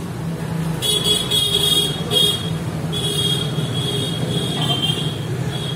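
Vehicle horns honking in busy street traffic: several short honks about a second in, then a longer honk from about three seconds in, over a steady low rumble of engines.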